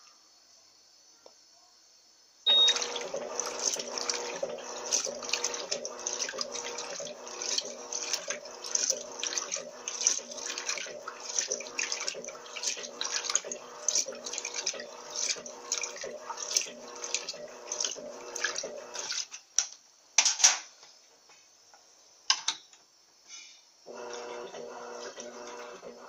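Electrolux 12 kg top-load washing machine agitating a load of bedsheets on its turbo setting: motor hum and water sloshing in regular rhythmic strokes, which starts a couple of seconds in, stops about 19 seconds in, and resumes near the end, with a couple of knocks during the pause.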